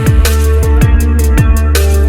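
Electronic dance music with a heavy, sustained bass line and a fast, steady kick-drum beat.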